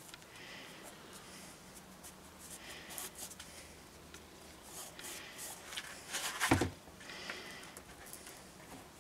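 Quiet handling noises as hands work double-sided carpet tape and handle pieces onto a foam-padded sword handle, with a louder burst of rustling and scraping about six and a half seconds in.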